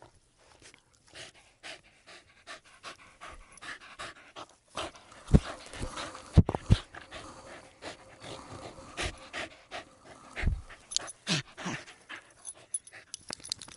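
A schnauzer panting and snuffling close to the ground as it rubs and rolls in the grass, with grass rustling and a few heavy thumps around the middle.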